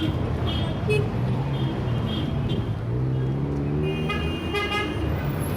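Heavy city traffic: a constant rumble of engines with one vehicle's engine rising in pitch as it pulls away about three seconds in, and car horns tooting several times, the longest honks near the end.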